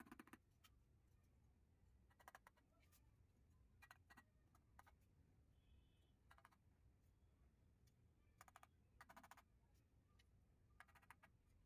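Faint clicks and taps of ceramic tile pieces being set and pressed into a mortar bed, in short clusters every second or two over near silence.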